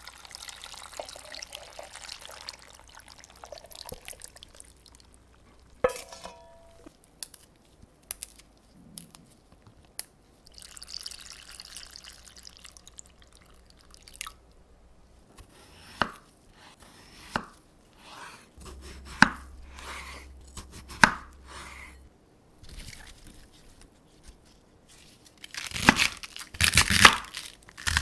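A run of kitchen sounds: thick seasoning liquid pouring over cut cucumbers in a steel bowl, a metallic clink with ringing about six seconds in, then water pouring into a glass bowl. Several sharp knocks follow. Near the end a chef's knife crunches through cabbage on a wooden cutting board, the loudest part.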